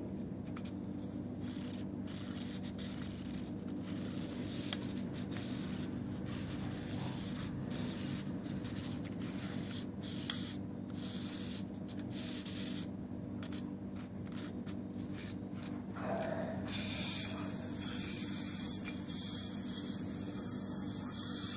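Wind-up toy Dalmatian's clockwork: a series of short, irregular rasping strokes as it is wound, then, about three-quarters of the way through, the released spring mechanism runs with a louder, continuous rasping buzz.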